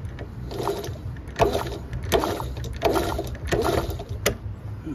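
Honda C70's single-cylinder engine being kicked over on the kick-starter, five strokes a little under a second apart, without firing: the ignition is giving no spark. A sharp click near the end.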